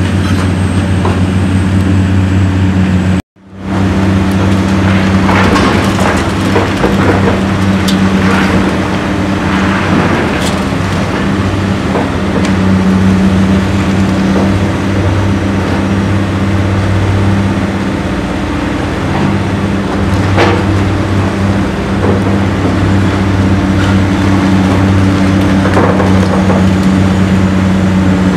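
Heavy diesel engines of Caterpillar demolition excavators running steadily under load, with scattered cracks and crashes of brick and concrete being crushed and falling as a demolition attachment breaks up a masonry wall. The sound drops out for a moment about three seconds in.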